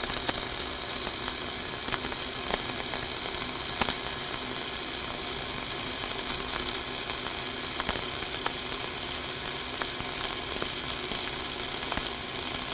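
Flux-cored arc welding, a vertical-up fill pass: the arc gives a steady crackling sizzle with scattered sharp pops.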